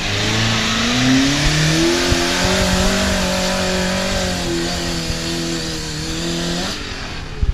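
Off-road vehicle engine revving up over about two seconds, then held at high revs, cutting off abruptly near the end.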